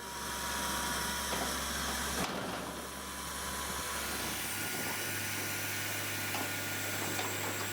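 A wood-processing machine running, a dense and steady mechanical noise. The sound changes abruptly about two seconds in and again at about four and a half seconds.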